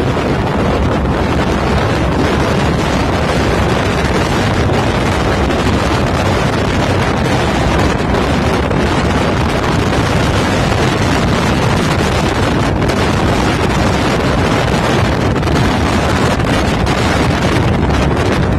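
Steady, loud wind buffeting the microphone, an even rushing noise with no breaks.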